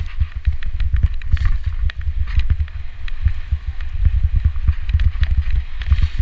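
Mountain bike riding fast down a rough dirt downhill trail: a steady low rumble of wind and vibration on the camera's microphone, with rapid clattering knocks and rattles as the bike runs over bumps and roots.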